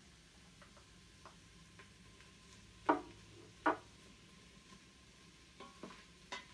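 Wooden spoon stirring in an Instant Pot's stainless steel inner pot. It knocks sharply against the pot twice about three seconds in, then taps lightly a few times near the end.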